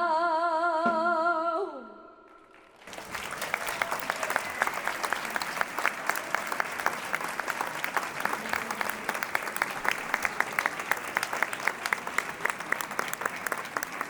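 A sung note held with vibrato dies away in the first two seconds; after a short pause the audience breaks into steady applause.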